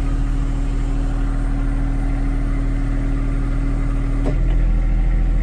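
John Deere 1025R's three-cylinder diesel engine idling steadily, with a steady hydraulic whine from the mower-lift circuit being worked. The whine stops with a click about four seconds in, and the engine note grows slightly louder.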